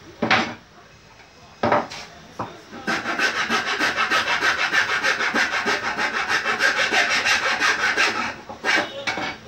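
Rapid, even back-and-forth scraping of a hand rasp along the edge of a curved wooden piece, running for about five seconds. It is preceded by two sharp wooden knocks as the pieces are handled, and a few more knocks follow near the end.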